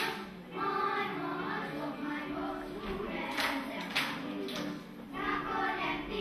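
A group of children singing a lively Croatian folk song together.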